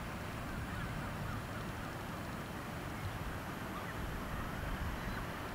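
Faint, scattered calls of seagulls over a steady outdoor hiss of wind and distant surf.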